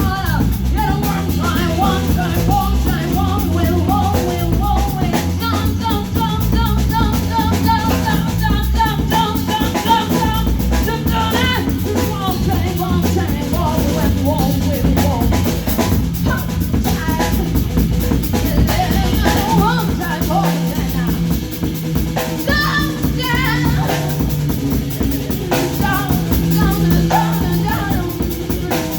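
Live band playing a song: drum kit with kick and snare, a bass line, and a singing voice over the top.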